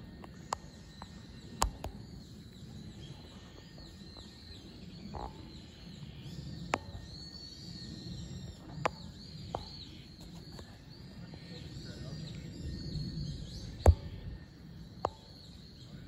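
Outdoor ambience of small birds twittering faintly, many short high chirps overlapping, over a low rumbling background, broken by several sharp clicks, the loudest a little before the end.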